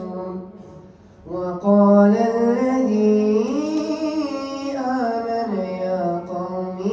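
A boy's voice reciting the Quran in the melodic, drawn-out tajwid style. After a brief breath pause about a second in, he holds one long ornamented phrase that rises and falls in pitch.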